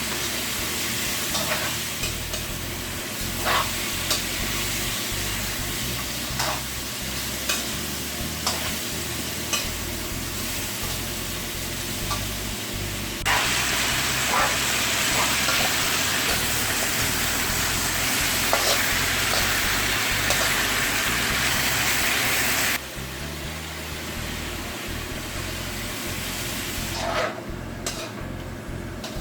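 Chicken adobo sizzling in a pan while it is stirred, with a utensil clicking against the pan now and then. The sizzling grows louder for about ten seconds in the middle and then drops suddenly.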